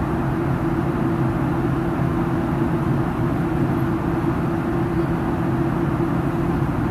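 Airliner cabin noise in flight: a steady drone of engines and rushing air heard from inside the cabin, with a low hum holding one pitch.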